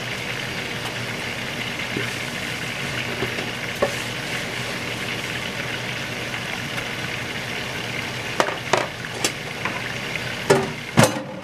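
Chicken deep-frying in hot oil in a saucepan: a steady sizzle, with several sharp clicks in the last few seconds.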